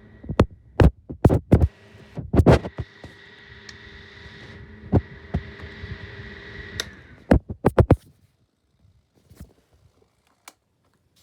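Small plastic box fan motor running with a steady hum and a high whine, amid a series of loud knocks and clunks. The hum cuts off about seven seconds in, followed by a few more knocks.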